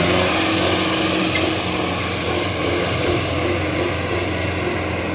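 Sonalika 750 tractor's diesel engine, fitted with a larger turbo and a modified injection pump, running steadily at about 2500 RPM in first gear while pulling a disc harrow. It holds its speed without labouring under the load.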